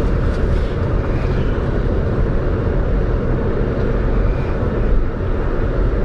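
Steady low rumble of a car driving along, with road and engine noise and no distinct events.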